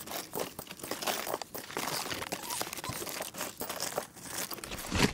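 Plastic rustling and crinkling as trash is rummaged through by hand: a dense, irregular run of small crackles.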